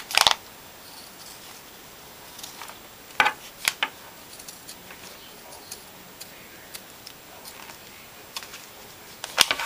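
Scissors cutting through knit sweater fabric. A few sharp snips come just after the start, twice around three seconds in and again near the end, with faint clicks of the blades between.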